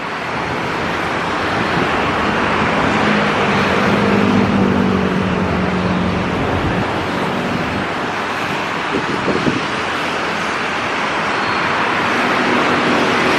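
Steady noise of jet airliner engines on a landing approach, with a faint high engine whine near the end.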